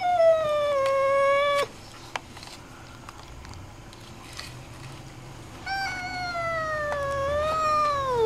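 Domestic cat yowling: two long, drawn-out yowls, each sliding slowly down in pitch. The first breaks off abruptly early on, and the second starts about six seconds in. It is the angry, hostile call of a cat upset at a strange dog in the house.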